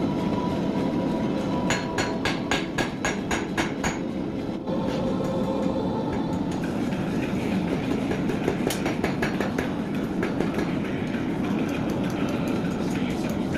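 Steady rumbling workshop noise with a quick run of about ten hammer strikes on metal, roughly four a second, about two seconds in, and a few lighter strikes later on.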